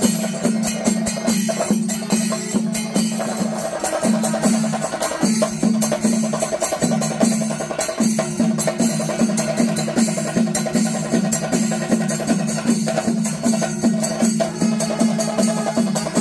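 Pandimelam, the Kerala temple percussion ensemble: massed chenda drums and ilathalam hand cymbals beat a steady, even rhythm of about two to three strokes a second, under a held tone from the wind instruments.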